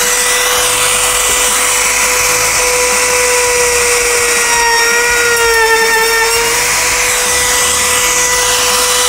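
Milwaukee M18 FUEL cordless compact router running at full speed as it trims the edge of a plywood panel, a steady high motor whine whose pitch sags slightly midway as the bit bites into the wood, then stops at the end. The bit tears out the plywood corner as it cuts.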